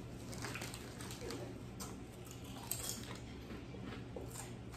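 Faint scratching and small clicks of markers writing on dry-erase boards, with a sharper tick about halfway through, over a low steady room hum.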